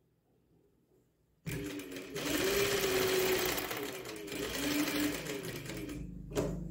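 Electric sewing machine starting up about one and a half seconds in and stitching through fabric, its motor whine rising and falling as the speed changes. It stops about six seconds in, followed by a short click.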